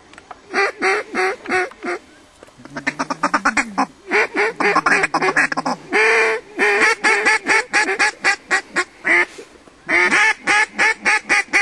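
Duck call blown close by: strings of loud quacks, with a fast chattering run of short notes about three seconds in.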